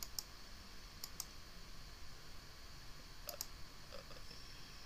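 Faint clicking at a laptop computer: sharp clicks in quick pairs, three times.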